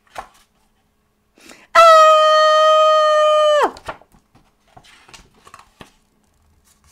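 A woman's long, steady, high cry held for about two seconds, dropping in pitch as it stops: an acted shriek read aloud for a cartoon character. Soft paper rustles of book pages being turned come before and after it.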